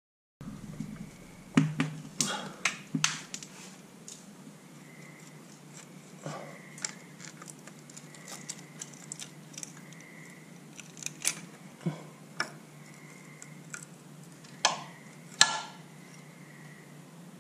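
Hand tools clinking on metal: irregular sharp clicks and taps of a wrench working the hydraulic line fittings on a mini excavator's final drive motor. A few clicks stand out louder, near the start and near the end.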